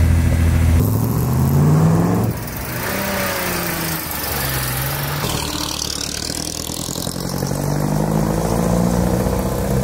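Car engines running and revving, their pitch climbing as they pull away. The sound changes abruptly a few times.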